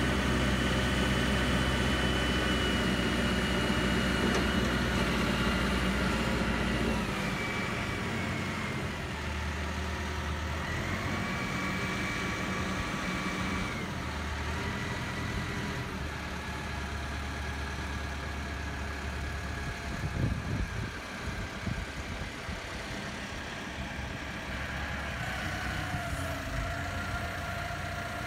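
CAT TH414 telehandler's diesel engine running with its hydraulics working as the boom is raised, the engine's pitch stepping down and back up several times as the controls are worked. A few knocks about twenty seconds in.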